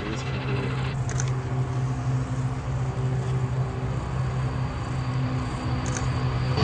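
Steady engine drone with a deep hum and a few fainter higher tones above it, with brief clicks about a second in and near the end.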